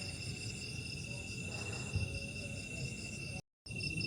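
Night chorus of crickets and other insects: a steady high chirring tone with a pulsed trill repeating several times a second above it, over a low rumble. The audio cuts out completely for a moment near the end.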